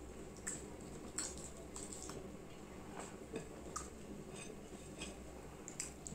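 Faint clicks and soft squishes of fingers mixing rice and curry on a plate, with a few light taps against the plate, over a low steady hum.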